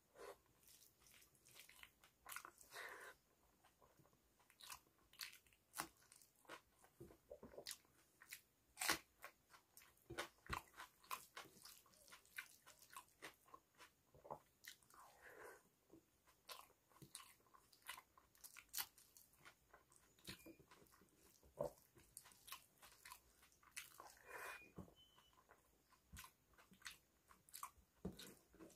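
Close-miked chewing and eating of dal and rice by hand: many irregular wet mouth clicks and smacks, with the soft squish of fingers mixing rice and dal on a steel plate.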